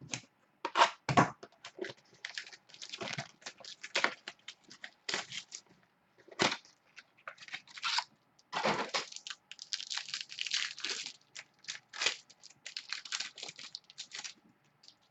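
Trading-card packs and cards being handled: wrappers crinkling and tearing in a run of irregular rustles and crackles.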